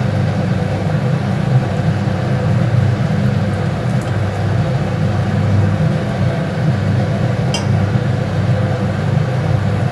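A steady low hum, with chhana balls frying in oil in a kadai beneath it; a single click about two-thirds of the way through.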